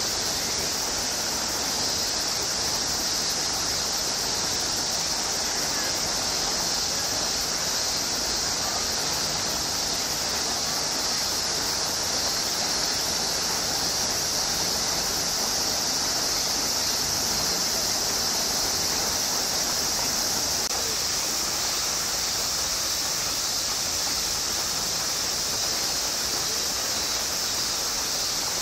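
Steady summer cicada chorus, a continuous high hiss that holds at an even level without a break.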